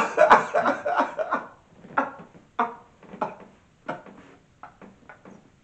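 A man laughing hard: a quick run of laughs, then separate short gasps of laughter about half a second apart, growing fainter.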